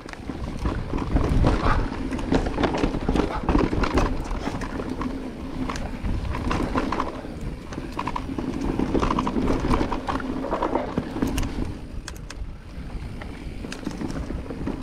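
Cube Stereo Hybrid 140 electric mountain bike riding fast down a dirt forest trail: knobby tyres rolling over dirt and dry leaves, with the bike and its parts rattling and knocking over bumps.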